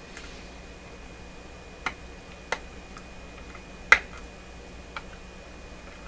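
A pointed metal pick clicking as it prods the hard, charred insulation of a burnt power cord: four sharp, separate taps, the loudest about four seconds in.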